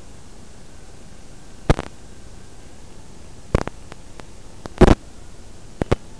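Steady static hiss from an analog FPV video receiver's audio channel, broken by about five sharp crackles, the longest just under two-thirds of the way through.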